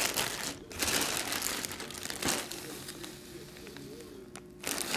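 Plastic wrapping crinkling as it is handled. The crinkling dies down past the middle and picks up again near the end.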